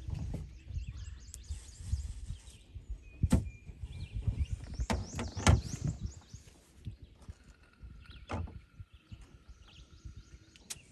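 Outdoor ambience: birds chirping over a low wind rumble, with a few sharp knocks, the loudest about three and five seconds in.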